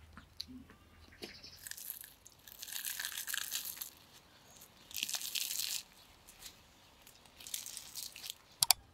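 Crisp crust of a walnut-filled flatbread being torn and broken apart by hand, crackling in three bursts. Two sharp clicks near the end.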